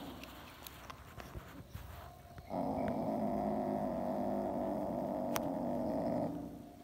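Asian leopard cat growling low and steadily over the chick it is eating, guarding its prey. The growl starts about two and a half seconds in and holds for nearly four seconds before stopping.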